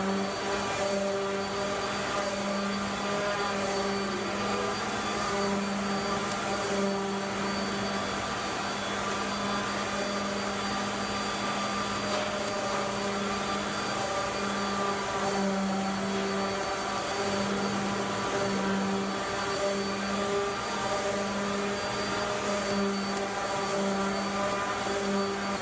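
Wood lathe running with a steady machine drone, a constant hum with overtones and a hiss above it.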